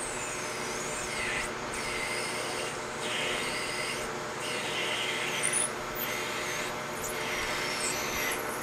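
Metal lathe running as a 5/8-inch end mill bores into the end of the spinning steel workpiece: a steady motor hum under a scratchy cutting noise that swells and eases about once a second, with a high wavering whine as chips come off.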